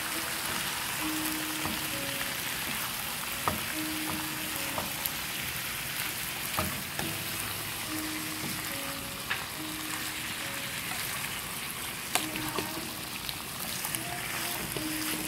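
Cubed raw pork with garlic, onion and carrot sizzling in a hot nonstick frying pan as it is sautéed and stirred with a wooden spatula, with a few sharp clicks of the spatula against the pan. A soft melody plays in the background.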